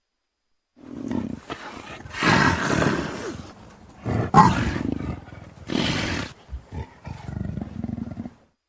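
A person making monster roars and growls with their mouth, starting about a second in as a series of separate bursts. A short high shriek cuts through about four seconds in, and a couple of brief clicks come just before a final longer growl.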